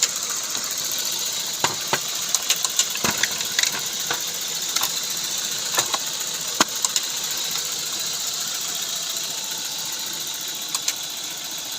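Volkswagen engine idling steadily, with a scatter of sharp clicks over it, most of them in the first half.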